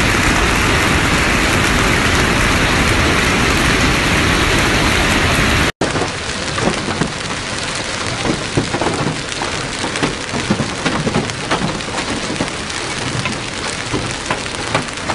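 Hailstorm: a dense, steady roar of hailstones and rain pelting the ground. After a brief break about six seconds in, the roar gives way to a rougher patter full of sharp individual ticks as hailstones strike hard paving.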